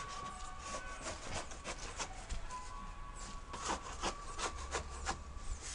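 Scraping strokes on a plastered masonry wall, at an uneven pace of about two or three a second and thickest in the second half.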